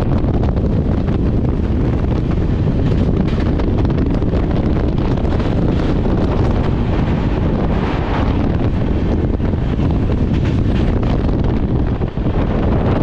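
Train running at speed: a loud, steady rumble with wind buffeting the microphone, dipping briefly near the end.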